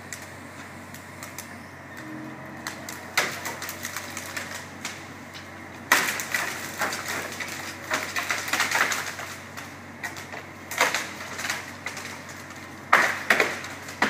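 Irregular crackling and sharp snapping of branches and twigs, in scattered clusters, over a faint steady engine hum.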